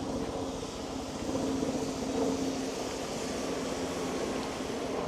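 Street traffic with a motor engine running nearby: a steady engine hum over a bed of road noise, swelling a little around the middle.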